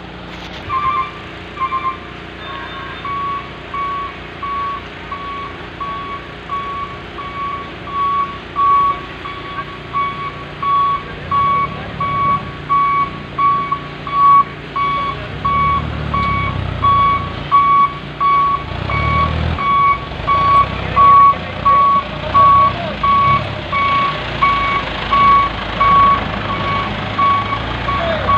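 Dump truck's reversing alarm beeping steadily as the sand-laden truck backs up, over its engine running. The engine rumble swells twice near the middle as it drives back under load.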